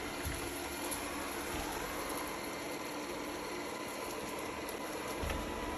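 ECOVACS DEEBOT X1 Omni robot vacuum running, a steady hiss of its suction fan with a faint hum under it.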